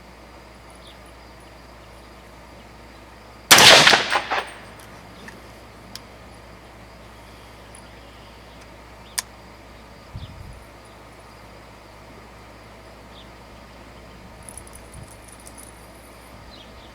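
A single rifle shot from a 16-inch-barrel .300 Blackout AR-15 firing supersonic ammunition: one sharp report about three and a half seconds in, with a short echo trailing off. A few small clicks and a dull thump follow later.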